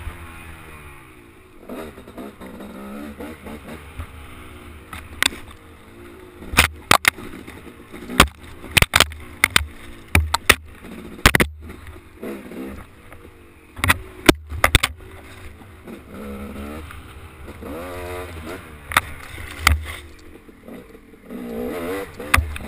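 Dirt bike engine revving up and down as it climbs and picks its way over a rocky trail. Repeated sharp knocks and clatter from the bumpy ride, most in the middle of the stretch, are the loudest sounds.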